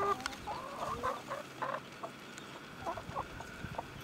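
Mother hen clucking to her chicks: a few short calls that rise in pitch right at the start, then scattered clucks.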